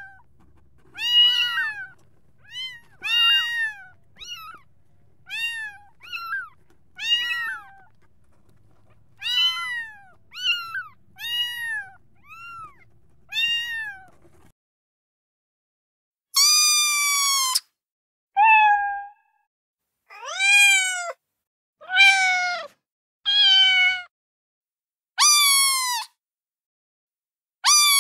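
Recorded kitten meows played back one clip after another. For the first half there is a run of short, high meows at about one a second over a faint hum. After a short gap comes a string of separate, longer meows from different recordings, each cut off cleanly.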